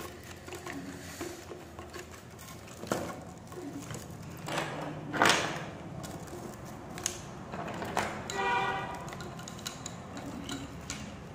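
Bangles clicking against each other and scraping as they are pushed and slid along a cardboard tube, with scattered sharp clacks and a louder scrape about five seconds in. A short pitched call sounds about eight seconds in.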